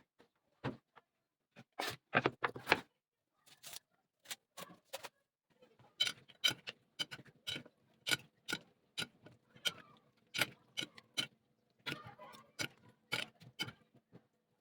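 A series of short, sharp clicks and light knocks, irregular at first and then a couple each second, over a faint steady hum that comes in about halfway through: kitchen utensils being handled while preparing food.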